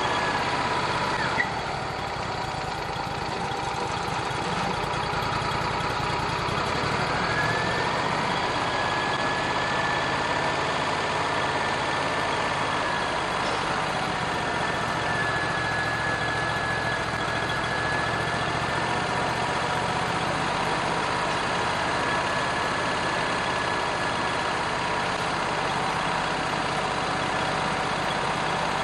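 Wood-Mizer bandmill running under power: the saw head's engine drones steadily while the band blade cuts along a flitch, with a steady high whine. One sharp click about a second and a half in.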